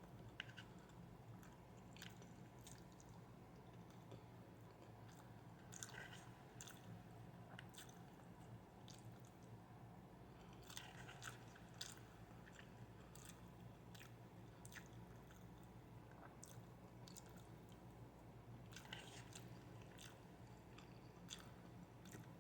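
A person chewing and eating fried rice, faint with short mouth clicks scattered throughout, over a steady low hum.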